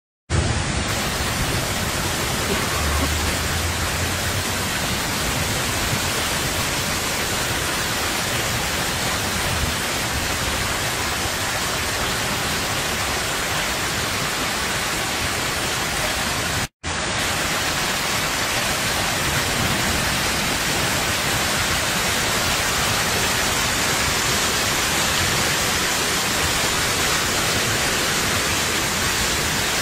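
Heavy rain falling steadily, a dense even hiss, briefly cut off at the start and again about 17 seconds in.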